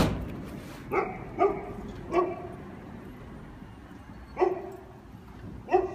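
A dog barking: five short single barks, the first three close together and the last two after a pause of about two seconds.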